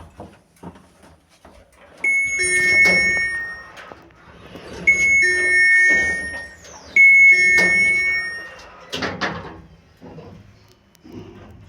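An electronic two-tone chime sounds three times, each about a second and a half long, the second and the fifth second apart and then two seconds apart. A short clatter follows near the end.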